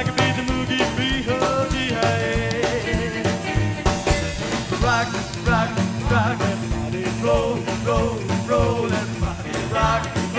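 Rockabilly band recording playing an instrumental stretch of a boogie: a fast, steady beat with upright bass under an electric guitar lead whose notes waver and bend from about halfway through.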